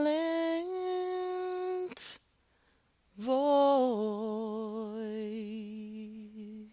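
A woman humming wordless held notes. The first note steps up in pitch twice and breaks off about two seconds in. After a short pause a second, lower note dips slightly, then wavers with vibrato and slowly fades.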